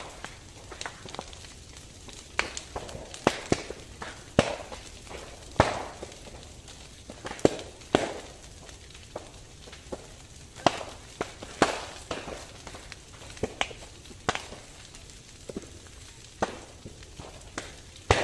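Brush fire crackling through dry vegetation: irregular sharp pops and snaps, about one or two a second, over a steady background noise.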